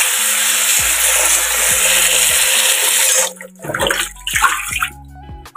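Water poured from a metal bowl of cow-skin pieces into a sink: a steady gush for about three seconds, then a few shorter splashes as the bowl is tipped again.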